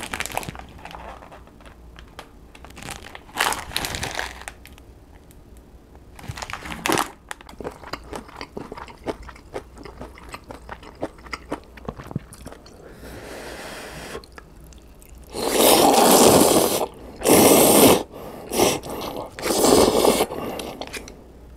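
Eating instant ramen: crinkling of plastic noodle packets near the start, small clicks and mouth sounds through the middle, then from about two-thirds of the way in a run of four or five loud slurps of noodles.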